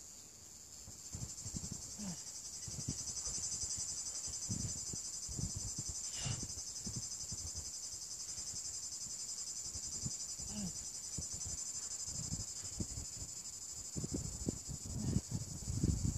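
A steady, high, finely pulsing buzz of cicadas in the pines. Underneath, irregular low rumbles that grow louder near the end.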